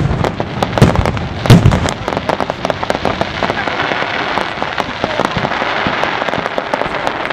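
Fireworks display: a few heavy shell bursts go off in the first two seconds, then a dense, fast crackling of many small bursts follows.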